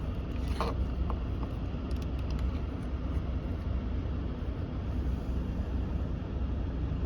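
Steady cabin noise of a pickup truck idling with its HVAC blower fan running at speed 5 and the A/C on, with a few faint ticks in the first couple of seconds.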